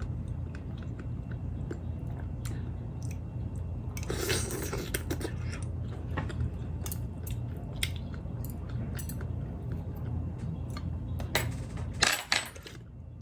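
Close-miked chewing of vegetables from a bowl of boiled pork soup, with many small mouth clicks and two louder noisy bursts, one about four seconds in and one near the end, over a steady low hum.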